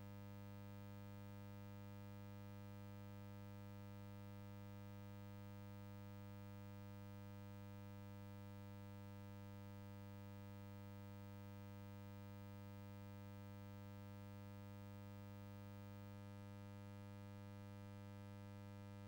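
Near silence except for a faint, steady low electrical hum: a buzz with many overtones that does not change.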